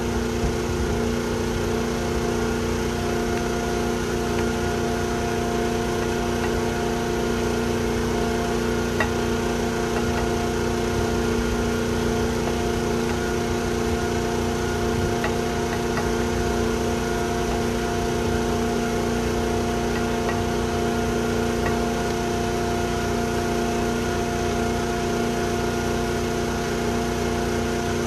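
A motor running steadily: a constant mechanical drone made of several fixed hum tones, with a few faint clicks over it.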